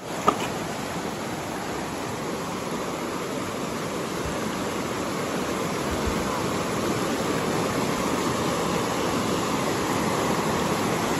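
River rapids rushing over rocks: a steady, dense wash of water, with one sharp click just after the start.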